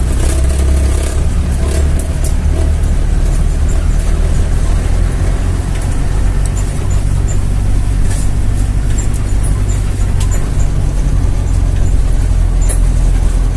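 Car engine running and tyre noise while driving: a steady low rumble with scattered light ticks and rattles.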